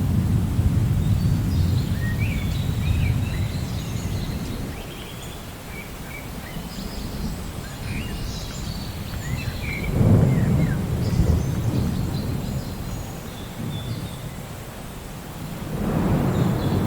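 Thunder rumbling: a deep roll that fades over the first few seconds, a new peal about ten seconds in, and another starting near the end. Birds chirp and call in short high notes between the peals.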